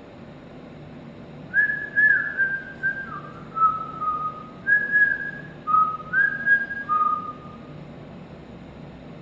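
A person whistling a short tune of about ten notes that step between a higher and a lower pitch, lasting about six seconds, over a steady low background hum.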